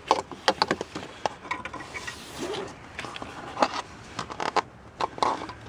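Hands working among the hoses of a truck's engine bay near the power steering reservoir: a string of irregular clicks, knocks and scrapes as parts and hoses are handled, with sleeve rustling between.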